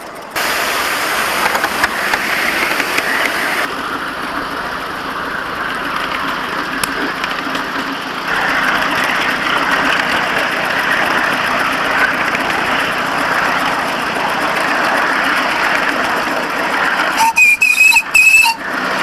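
Miniature steam locomotive running on its track: a steady hissing rush. Near the end there are a few short, loud bursts carrying high steady tones.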